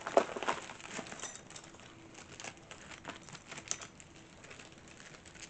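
A pouch of knitting needles being opened and handled: plastic packaging rustling, with scattered light clicks and taps, the sharpest about a fraction of a second in.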